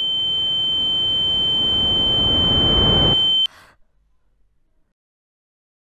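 A steady, high-pitched electronic tone with a swell of noise growing louder beneath it; both cut off abruptly about three and a half seconds in.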